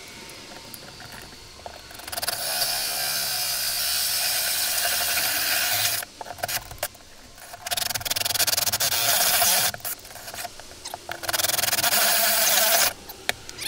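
DeWalt cordless drill driving a 2¾-inch hole saw through the boat's cabin wall, in three runs of steady grinding (the first about four seconds long, then two shorter ones), with handling noise in the pauses.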